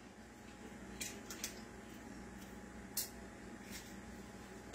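Quiet kitchen background with a few faint, light clicks and taps of items being handled, four of them spread over the span.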